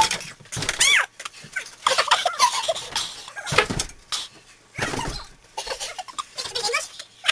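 High-pitched, warbling squeals and shrieks from a person's voice, broken into short bursts, with three thumps spread through.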